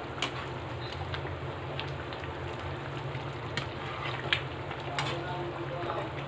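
Meat curry simmering in a metal kadhai, a steady bubbling hiss, with a few light clicks of a metal spoon against the pan as it is stirred. A steady low hum runs underneath.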